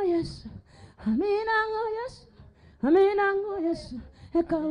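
A high voice singing long held notes, about a second each with short pauses between, the first gliding up into its note; another note begins near the end.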